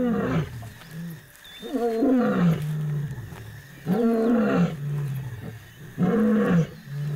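Male lion roaring in a series of four long calls about two seconds apart, each falling in pitch and trailing off low. This is territorial roaring, a nightly warning to outside lions.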